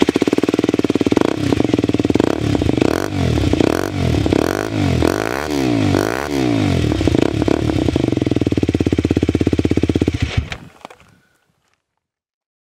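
Aprilia SX 125's single-cylinder four-stroke engine through a G.P.R. Furore carbon exhaust with the dB-killer baffle removed, unmuffled. It is revved in a run of quick throttle blips, settles back to idle, and is switched off about ten seconds in.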